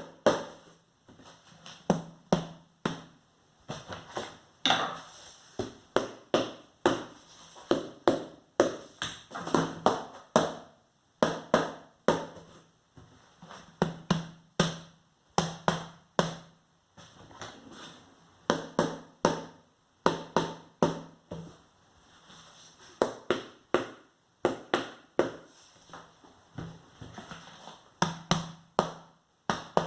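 Large wooden spoon beating on household objects such as a book and a cardboard box as an improvised drum: a long series of dry knocks in short, irregular groups with brief pauses between them.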